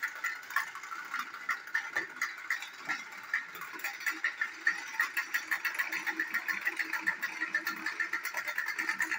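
Battery-powered TrackMaster toy train running on plastic track: a steady motor and gear whir with a rapid clatter of clicks that comes faster as it goes.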